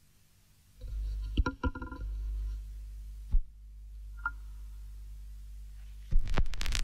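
Opening of an instrumental hip-hop beat: a low humming drone fades in with a few scattered clicks and short pitched tones, and near the end the full beat with drums comes in.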